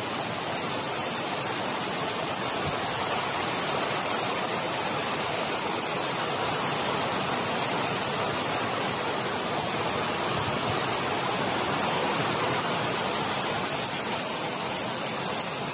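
Heavy typhoon rain pouring down as a steady, dense hiss.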